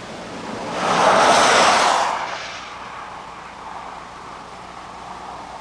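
A vehicle passing by on the highway, its noise swelling about a second in and fading away again within about two seconds.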